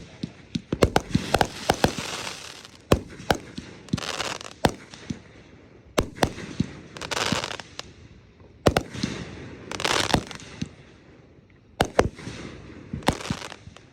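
Fireworks going off: a string of sharp bangs, with short bursts of hissing every couple of seconds.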